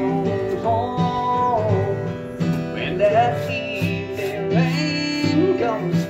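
Country music with strummed acoustic guitar under a melody of held notes that bend in pitch.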